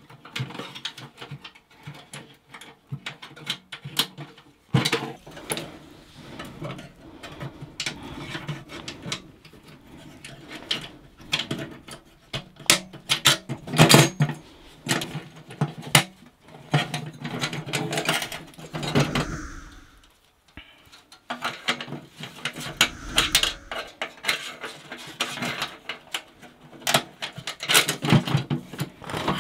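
Metal clinks, knocks and scrapes of a small steel tent wood stove being handled and put together by hand, its legs fitted into their sockets and fastened with small pins. The clicking goes on throughout, with a short lull about two-thirds of the way through.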